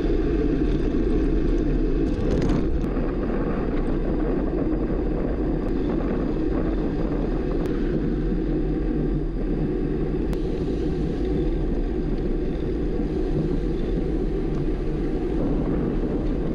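Steady wind rumble and road noise picked up by a camera on a road bike's handlebars while riding.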